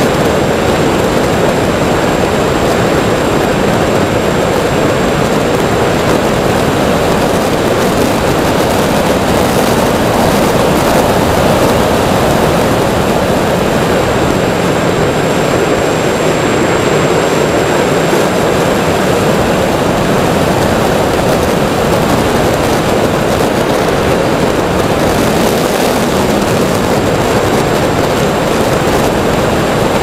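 X-UAV Mini Talon RC plane's electric motor and pusher propeller heard from its onboard camera in flight: a steady, loud rushing drone, mixed with air rushing past, with a thin high whine held throughout.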